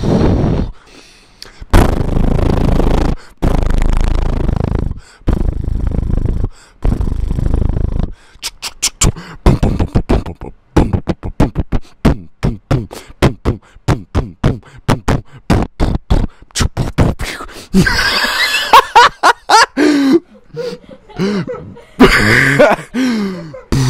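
Beatbox-style mouth noises: several long, loud buzzing blasts, then a fast, irregular run of short pops and clicks, then gliding pitched vocal sounds near the end.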